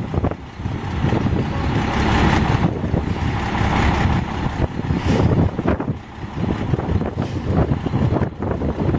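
Volvo front-loader garbage truck's diesel engine running as the truck moves slowly, with an uneven rumble and a rushing hiss that swells about two seconds in and fades around four and a half seconds in.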